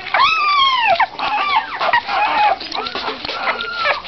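Newborn Labrador retriever puppies whining and squealing: a series of high calls that rise and fall, one long squeal near the start followed by several shorter ones.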